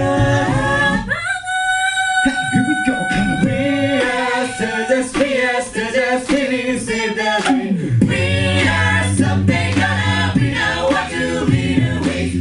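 Mixed-voice a cappella group singing live in close harmony. About a second in, one voice slides up and holds a high note for a couple of seconds. From about eight seconds in, a steady low vocal bass line sounds under the harmony.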